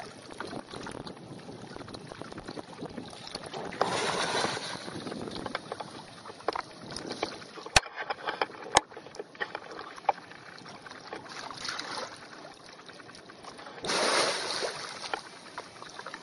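Lake water sloshing and splashing as an elephant moves through it. There are two louder surges of splashing, about four seconds in and near the end, and two sharp clicks a second apart midway through.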